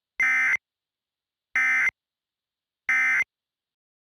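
Emergency Alert System end-of-message data bursts: three short, identical, harsh digital screeches about a second and a half apart, marking the close of the alert message.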